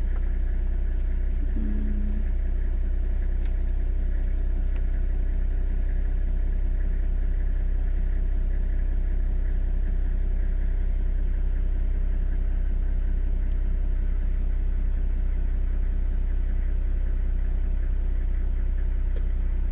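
Safari vehicle's engine idling steadily, a constant low hum.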